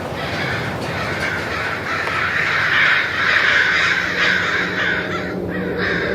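A mass of birds calling over one another in a dense, continuous chatter, thickest in the middle seconds, over a steady low rumble.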